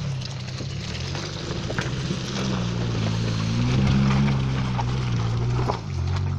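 Suzuki Vitara 4x4's engine pulling under load up a muddy rutted slope. The engine note rises and gets louder about halfway through, then drops off sharply near the end, with scattered short knocks from the vehicle working over the ruts.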